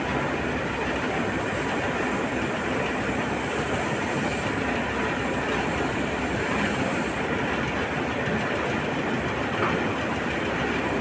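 Heavy earthmoving machinery working iron ore pellets: LiuGong excavator and wheel loader diesel engines running under load, with a steady, dense clatter of pellets.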